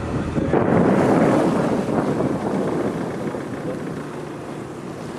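Wind buffeting the microphone and water rushing against a moving boat at sea: a loud rush that swells about half a second in and eases off over the next two seconds.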